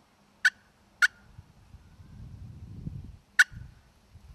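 Three short, sharp clucks from a glass-surfaced pot-and-peg turkey call, each a single straight stroke of a flare-tip striker across the crystal: two about half a second apart near the start, then a third about three and a half seconds in.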